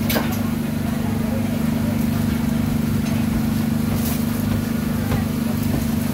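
Steady low mechanical hum of a motor running without change, with a few brief light taps over it.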